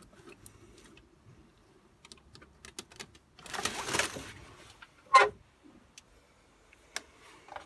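Hands working on the engine: light clicks of metal parts and tools, a rustling scrape about three and a half seconds in, and one short, loud clink about five seconds in.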